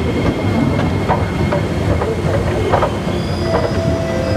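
Running escalator in an underground train station: a steady low rumble with scattered clicks and knocks and a faint, steady high hum. A steady whine comes in near the end.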